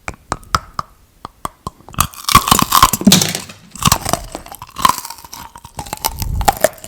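Close-miked chewing: a run of sharp mouth clicks, then loud wet crunching bursts.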